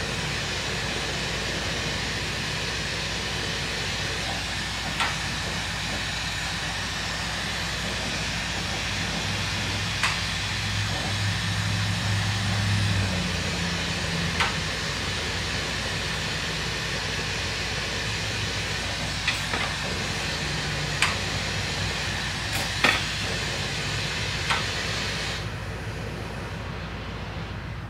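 Lampworking bench torch hissing steadily while glass is heated in the flame, with a few sharp clicks scattered through. Near the end the high hiss drops off sharply.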